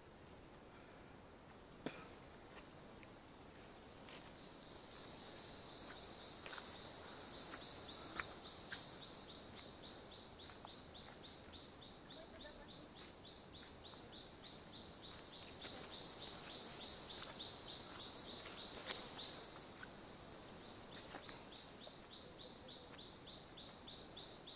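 Tropical forest insects buzzing in a high hiss that swells up and dies away twice. In the second half a rapid, even run of chirps keeps repeating. A few sharp clicks come through, the loudest about two seconds in.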